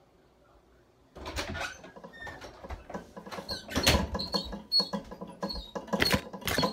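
A pet gerbil scratching and gnawing: a busy run of irregular clicks and rustles with short high squeaks, starting about a second in after near silence. Two louder knocks, about four and six seconds in, stand out over it.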